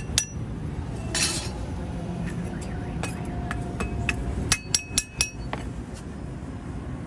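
Small hand hammer tapping a cast metal water pump impeller held in tongs, giving sharp, ringing metallic clinks. The strikes are scattered at first, then come in a quick run of about five about four and a half seconds in.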